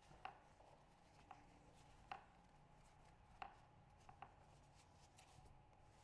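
Faint taps and soft handling noises of bread dough being pressed and rolled by hand on a marble countertop, a handful of light knocks spread over a few seconds against near silence.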